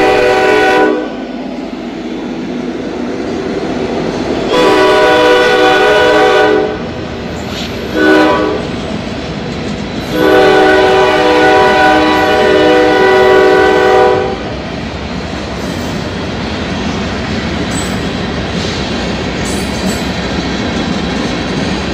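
Norfolk Southern freight locomotive's multi-note air horn sounding the grade-crossing pattern: a long blast ending about a second in, another long blast, a short one, and a final long blast that stops about fourteen seconds in. Beneath and after it, the steady rumble and clickety-clack of freight cars rolling past.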